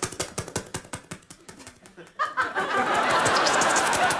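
Vocal sound effects made with a performer's mouth: a rapid run of clicks, then about two seconds in a loud, dense spluttering hiss that carries on.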